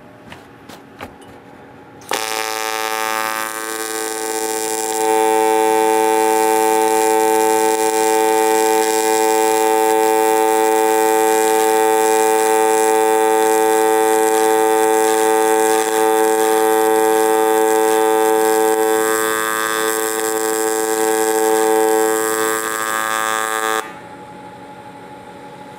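AC TIG welding arc on aluminum buzzing steadily as a bead is run. It starts about two seconds in and grows louder a few seconds later as the foot pedal raises the amperage. Near the end it eases as the pedal is backed off slowly to fill the crater, then cuts off abruptly.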